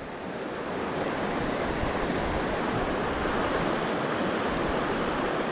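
Steady rush of a shallow river running fast over a rocky bed.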